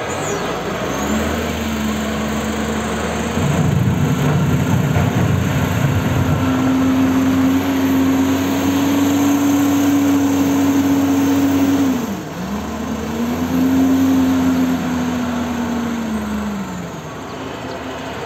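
LiuGong wheel loader's diesel engine working under load as the machine drives and manoeuvres: the engine note climbs and holds high, dips sharply about twelve seconds in, rises again and falls away near the end, with a rougher rumbling stretch around four to six seconds in.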